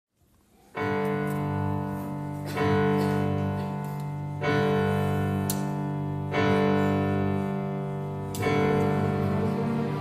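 Slow instrumental introduction by a string orchestra with violins: sustained chords, starting just under a second in, with a new chord about every two seconds.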